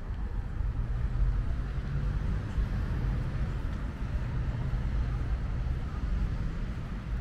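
Outdoor city ambience: a steady low rumble of traffic with faint voices of passers-by.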